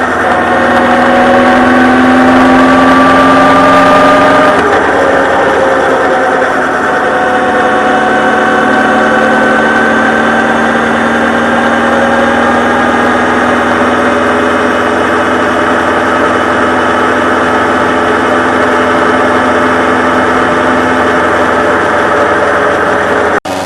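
Honda CB1300 Super Bol d'Or's inline-four engine running on the move, its pitch climbing slowly as the bike gathers speed. The sound changes abruptly about four and a half seconds in and cuts off suddenly near the end.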